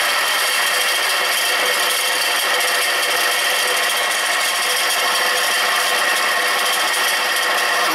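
Newly reassembled Snowmaster snow cone machine running under its electric motor: a loud, steady mechanical whir with several high steady tones, cut off suddenly near the end. It is not how it is supposed to sound.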